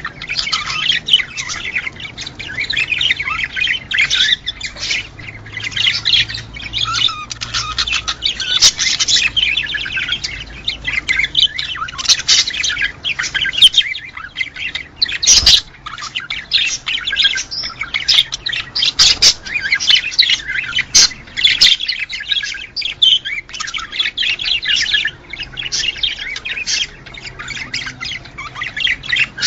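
Budgerigars chattering continuously in rapid, high chirping notes, with a couple of sharp clicks in the middle.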